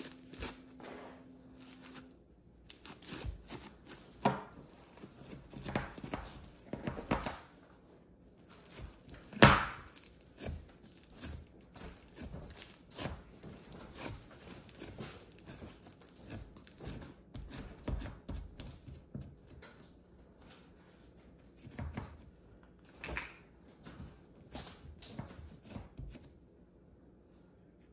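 Pink Peachybbies slime being stretched, squished and pressed by hand into its plastic tub: irregular sticky crackles, pops and clicks, with one sharper knock about nine seconds in.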